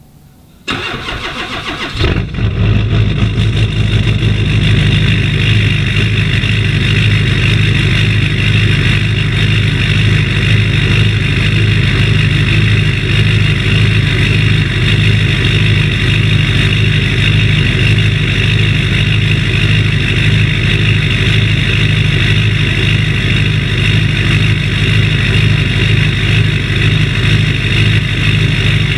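2004.5 LLY Duramax 6.6-litre V8 turbo diesel cold-started in winter: the starter cranks for about a second, then the engine catches about two seconds in and settles into a steady idle through its 5-inch MBRP exhaust.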